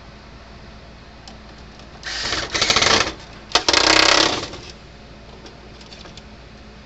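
A small power tool running in two short bursts of about a second each, with a brief stop between them.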